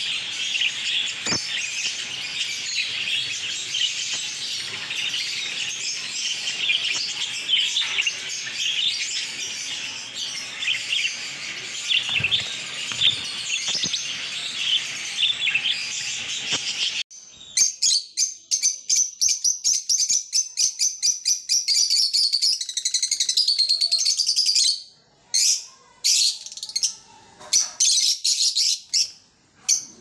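A cage of lovebirds, lutino peach-faced and green Fischer's, chattering together in continuous shrill twittering. A little over halfway through it cuts off abruptly to quicker, separate high chirps with short gaps between them.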